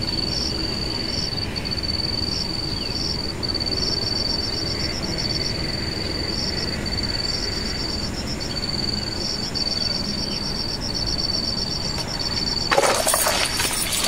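Insects trilling steadily in a high, pulsing chirp over a low rushing background. A loud burst of rushing noise comes about a second and a half before the end.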